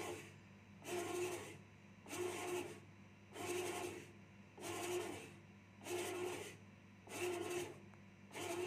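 Bread machine kneading dough: its motor drives the paddle in regular pulses, about one a second, over a steady low hum.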